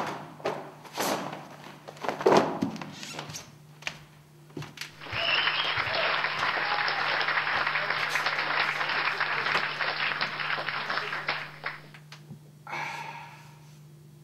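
A few knocks and thumps, then applause that starts suddenly about five seconds in, runs for about seven seconds and cuts off abruptly, followed by a short second burst.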